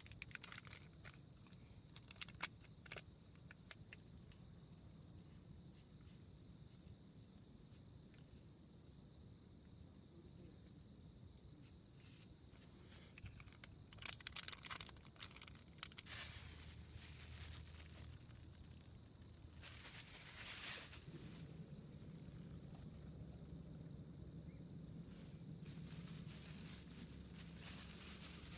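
An insect, cricket-like, singing one steady, unbroken high note, with a few faint clicks and two brief rustling noises partway through.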